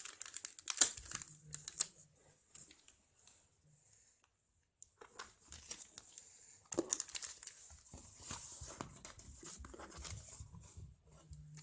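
Paper and plastic packaging crinkling and rustling as a magazine and its card packet are handled, with some tearing. The crackling stops briefly about halfway through, then picks up again.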